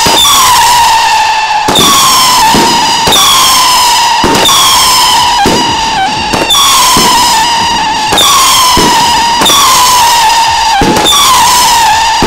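A firework battery firing whistling shots one after another. Each one is a loud whistle that slides slightly down in pitch for about a second and a half before the next starts, about eight of them back to back.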